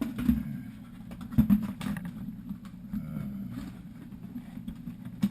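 Packaging and parts being handled: irregular clicks and knocks with some rustling, the sharpest about a second and a half in, over a steady low hum.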